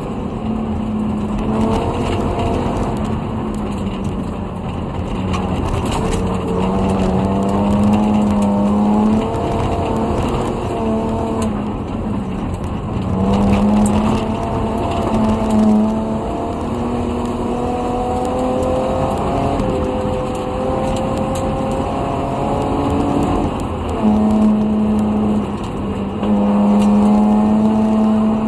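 Rally-prepared BMW E30 with a swapped-in M50 2.5-litre straight-six, heard from inside the cabin at full stage pace. The revs climb through each gear and drop at the shifts, over loose gravel road noise with stones ticking against the car.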